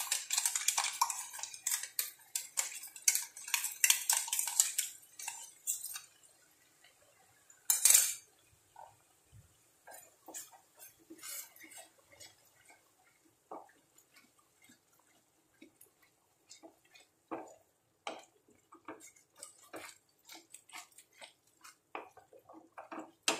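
Kitchen utensils clattering and scraping against a frying pan while a thick masala paste is stirred. Dense rapid clinks for the first six seconds and one louder clank about eight seconds in, then sparser, fainter scrapes of the spatula in the pan.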